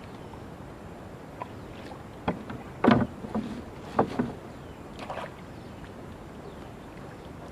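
Water splashes and knocks from a small boat on a river, four or five sudden ones in the middle, the loudest about three seconds in, over a steady background hiss.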